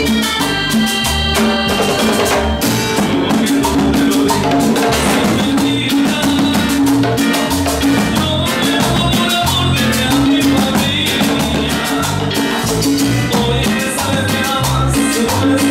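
Loud live Latin dance music with a steady beat: a repeating bass line, drums and a scraped metal güiro.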